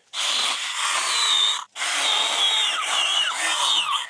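Stihl battery mini pruning chainsaw running and cutting through overgrown brush, its motor whine wavering under load. It runs in two stretches with a brief stop about one and a half seconds in.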